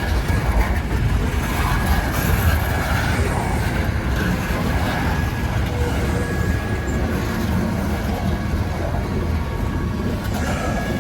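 Freight train cars rolling past on the rails: a steady rumble, with a faint thin high tone running through it.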